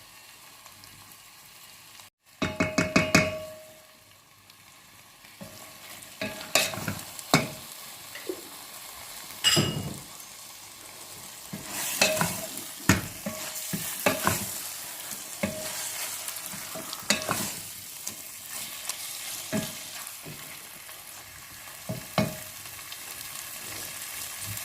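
A spoon stirring and knocking against a cooking pot while a stew base of tomato paste in fat sizzles. A quick run of rapid taps comes about two seconds in, then scattered knocks of the spoon over a steady sizzle.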